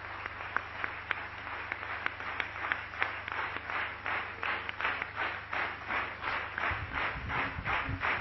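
Audience applauding: scattered claps at first that thicken into steady applause. A few low thumps join in near the end.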